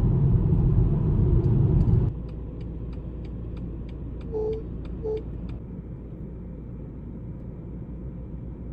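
Low rumble of city road traffic, loud for about two seconds and then cutting abruptly to a quieter street background. Over it runs a string of quick, even ticks, about three a second, with two short pitched beeps in the middle.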